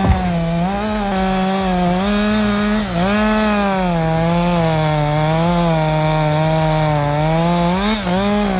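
Chainsaw running at high revs while cutting wood, its pitch sagging and recovering as the chain bites and frees in the cut. A sharp knock comes right at the start, and near the end the revs start flicking quickly up and down.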